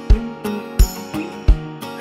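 Background music with a steady beat: a deep drum hit about every two-thirds of a second under held chords.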